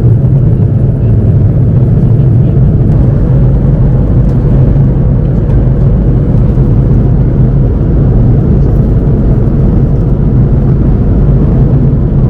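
Steady low drone of an Airbus A330-300 cabin in cruise, the rush of airflow and engines heard from an economy seat.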